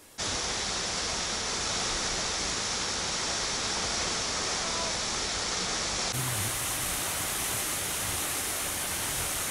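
Kynrem Falls pouring down onto the boulders at its foot: a steady, unbroken rush of falling water.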